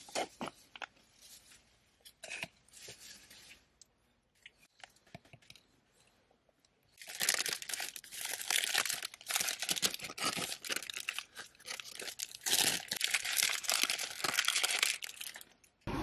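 A few faint clicks and scrapes of a spoon in a plastic yogurt cup. Then, about seven seconds in, paper wrapping begins to crinkle and tear loudly and goes on for most of the rest, with a short pause partway, as food is unwrapped.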